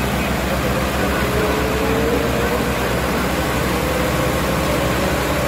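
Two diesel tractor engines, a Mahindra Arjun 605 and an HMT 5911, working hard under load as they pull against each other in a tug of war, with a steady fast low chugging. A thin tone rises slowly in pitch through most of it.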